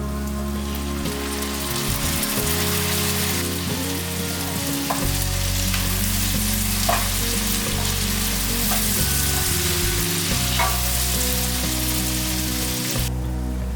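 Food sizzling in oil in a frying pan, with a few light clicks; the sizzle cuts off sharply near the end. Soft background music runs underneath.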